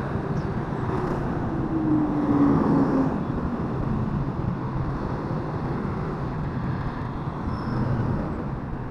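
Motorcycle engine running while riding in traffic, with wind noise on the microphone; the engine note drops over the first few seconds as the bike eases off.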